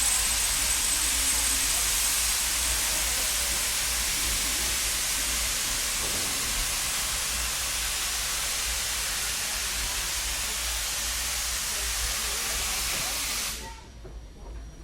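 Steam locomotive venting steam: a loud, steady hiss that eases slightly, then cuts off suddenly near the end.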